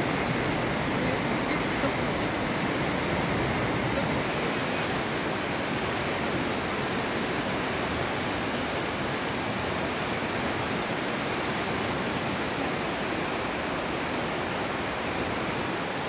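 The Aare river rushing through a narrow rock gorge: a steady, even roar of fast whitewater.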